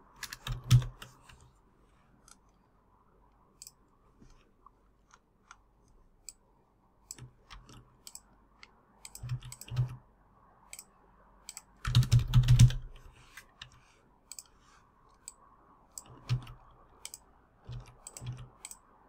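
Computer keyboard typing in short irregular bursts, the loudest about two-thirds of the way through, with scattered single clicks between.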